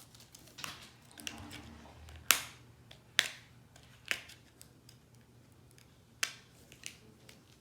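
Sharp plastic snaps, four loud ones a second or so apart with lighter clicks and crinkling between them: L.O.L. Surprise packaging being opened and handled.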